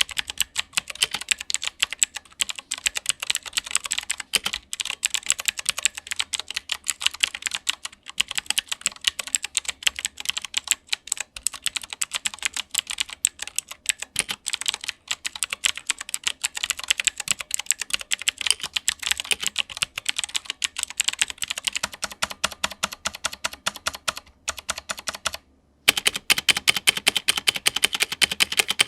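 Typing on a Gamen Titan III 60% mechanical keyboard with Outemu blue switches: a fast run of sharp key clicks with a few short pauses, faster and louder near the end. The switches sound scratchy with a spring ping.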